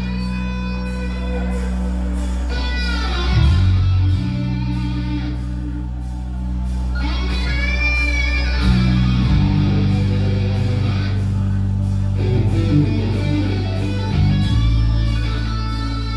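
A live rock band with an electric guitar solo: high notes bent up and down over held bass notes that change every few seconds, with a steady cymbal tick.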